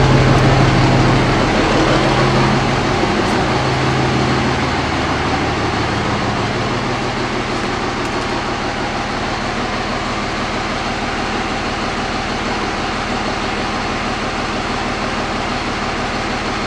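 2005 Dodge 5.9 Cummins common-rail diesel engine running steadily, below operating temperature, a low hum in it easing about five seconds in. The owner traces the engine's hot no-start to excessive return fuel flow from one or more injectors.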